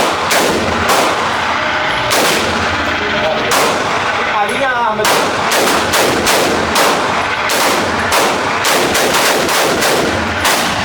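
Firearms shooting: a rapid, irregular run of gunshots that often overlap one another, with no real pause in between.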